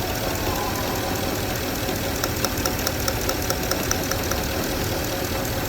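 Porsche engine running steadily at idle. A quick run of sharp, evenly spaced ticks, about five a second, lasts for about two seconds in the middle.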